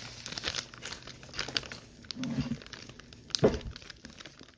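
Foam-bead slime being squeezed and worked by hand, giving a dense run of small crackles and pops, with one louder thump about three and a half seconds in.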